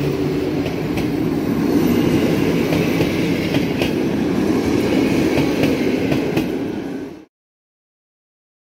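PKP InterCity passenger coaches rolling past at close range: a steady rush of wheels on rail with a few faint clicks. It fades about seven seconds in and drops to silence.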